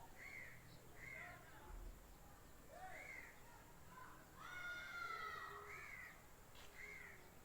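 An Aseel rooster crows once, a short call of about a second and a half starting about four and a half seconds in. Around it come several brief arched calls from other birds, repeated every second or two.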